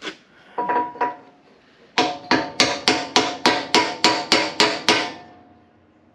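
Hammer blows on steel as a new part is driven into the quick coupler: a few light ringing taps, then a quick run of about a dozen hard strikes, about four a second, each with a short metallic ring.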